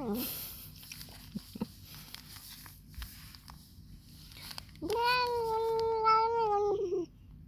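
A cat making the odd meowing noise it makes while eating: a short falling call at the very start, then, a little under five seconds in, one long, steady, drawn-out call of about two seconds.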